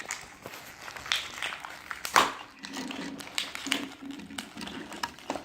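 Plastic toy parts and packaging being handled: scattered rustles and small clicks, with one sharper knock about two seconds in.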